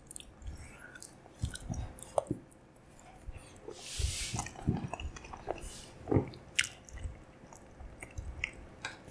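Close-miked chewing of soft meatballs, mashed potatoes and lingonberry jam, with small wet mouth clicks and smacks. A short breathy hiss comes about four seconds in.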